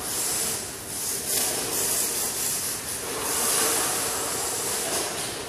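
Radio-controlled drift car running on a smooth concrete floor: a steady hiss of its electric drive and hard tyres sliding that swells and eases as it drifts through the corners.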